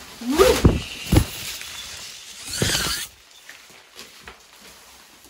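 A plastic shower curtain rustling and flapping as it is spread out and laid down on the floor. There are two thuds about a second in and a short burst of crinkling near the middle.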